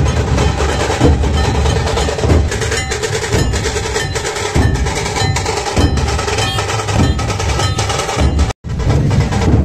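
A dhol troupe playing: many large barrel-shaped dhol drums beaten together in a loud, driving rhythm. The sound cuts out for a moment about eight and a half seconds in.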